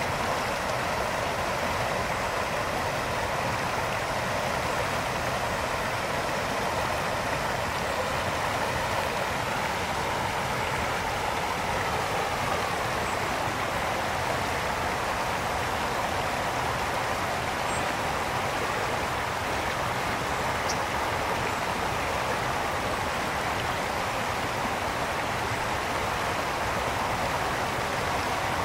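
Brook water flowing and splashing over stones, a steady, even rush.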